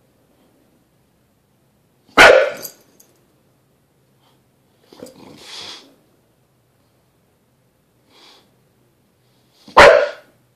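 English bulldog giving two short, loud barks about eight seconds apart, with a softer breathy huff between them.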